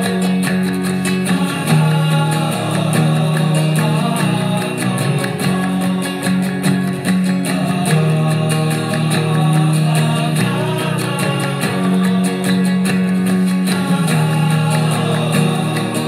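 Background music led by acoustic guitar strumming over a steady bass line.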